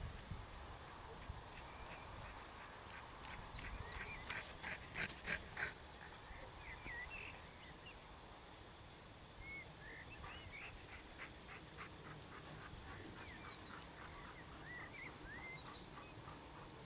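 Faint animal calls: a quick run of short calls about four to six seconds in, then scattered short, curling calls.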